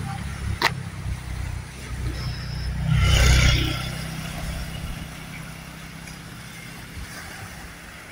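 Wind rumbling on a phone's microphone by the sea, with a click early on. A rush of noise swells about three seconds in and fades over the next two.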